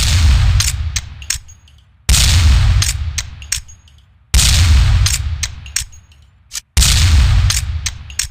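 Remington SR8 rifle firing four shots about two seconds apart, each ringing out in a long tail that fades over a second and a half, followed by a few short sharp clicks before the next shot.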